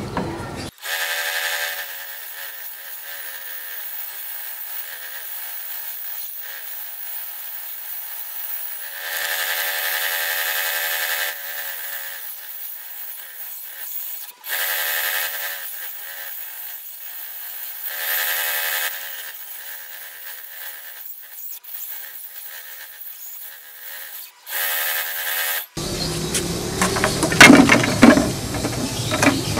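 Homemade table saw running and ripping thin wooden strips: a steady whine that grows louder and more tonal during each cut, about four cuts. Near the end, loose wooden strips clatter as they are handled.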